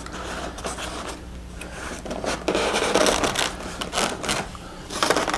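Foam model-airplane wing and its bundled servo wires rubbing and scraping as the wing is pushed home into the fuselage, in irregular scuffs and scratches that are busiest in the middle.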